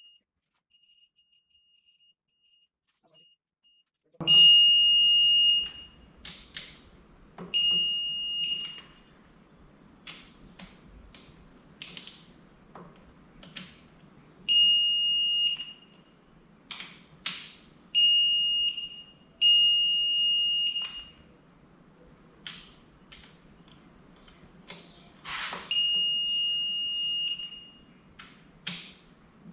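Digital torque wrench beeping as it tightens the intake manifold bolts: faint short pips at first, then six long, loud beeps, each marking a bolt brought to its set torque of about 12 foot-pounds. Clicks and knocks of the wrench being moved and fitted between beeps.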